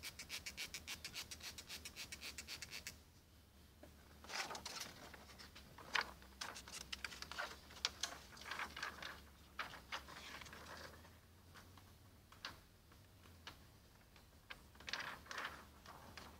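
A hand trigger spray bottle squirted in a quick, even run of about twenty strokes for roughly three seconds, wetting car window glass for tint film. Then come irregular rubbing and scraping sounds as hands and the tint film sheet work against the glass.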